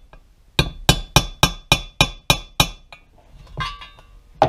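Hammer tapping a driver to seat a brass bushing into an aluminium clutch cover: about eight quick ringing metal clinks, roughly three a second. This is followed by a short clatter and one more sharp knock near the end.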